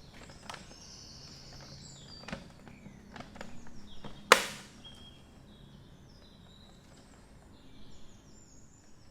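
A single sharp, loud click or snap about four seconds in, amid a few faint handling clicks of small plastic fan parts; faint bird chirps sound in the background.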